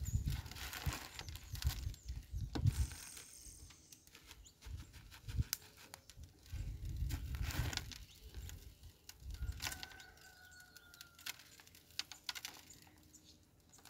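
Coarse rock salt sprinkled by hand over a raw beef rib, the grains pattering onto the meat, with low handling bumps and scattered clicks.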